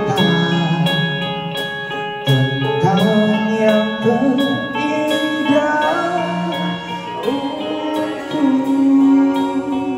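Live rock band playing a song: electric guitars, bass guitar, drum kit and keyboard, with a singer's lead vocal over the band.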